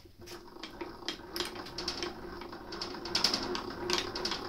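Light metallic clicks and rattles as a tap follower is handled and fitted into a milling machine's drill chuck, over a steady low hum.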